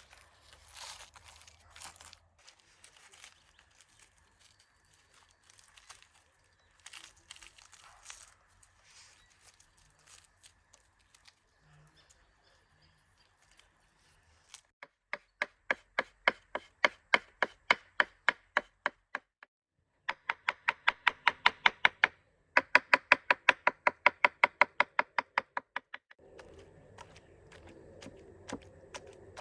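Faint crackling and rustling, then, about halfway through, three runs of quick, evenly spaced knocks, about five a second, as of a knife chopping fast on a cutting board.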